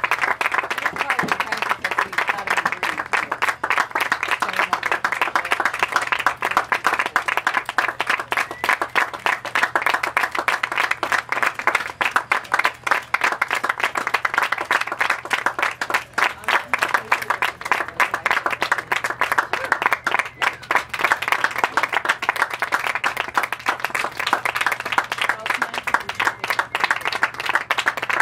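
Spectators' applause: many hands clapping in a dense, steady patter that keeps on at an even level.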